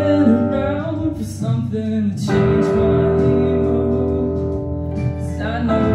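Male voice singing over his own electric guitar, played through an amplifier. The held guitar chord changes about two seconds in and again near the end.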